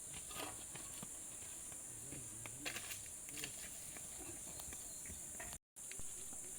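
Steady, high-pitched insect chorus, with scattered faint clicks and knocks. The sound cuts out for a moment near the end.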